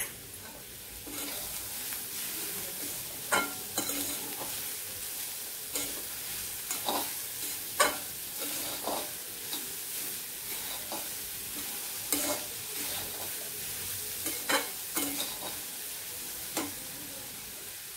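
Shredded cabbage, capsicum and carrot sizzling in a metal kadhai while a flat metal spatula stirs and tosses them. The spatula knocks and scrapes against the pan at irregular moments, about once every second or two, over a steady sizzle that starts about a second in.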